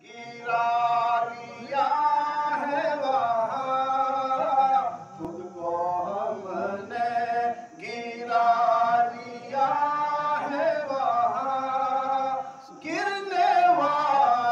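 A man chanting an unaccompanied devotional recitation into a microphone, in long held, wavering notes, phrase after phrase with short breaths between.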